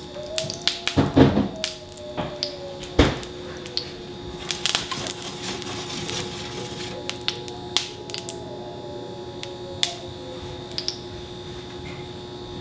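Tallow melting in a hot stainless steel skillet, giving off scattered crackling pops and clicks, with two louder knocks about one and three seconds in over a steady faint hum.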